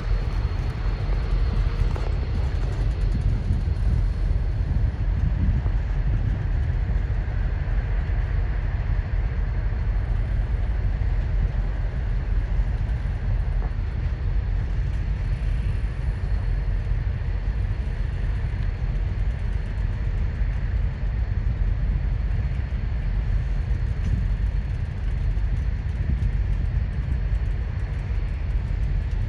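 Union Pacific tie-pickup work train rolling past, a steady low rumble with no change in pace.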